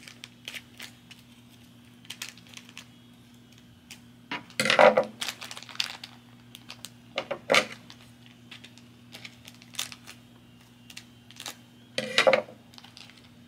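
Small foil surprise packets crinkling as they are handled and cut, with clicks and snips of hand scissors. A few louder knocks of things set down on a tabletop come about five seconds in and near the end.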